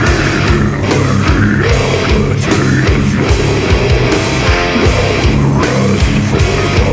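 Heavy metal band recording playing loudly: distorted electric guitars over bass and a steady pounding of drums.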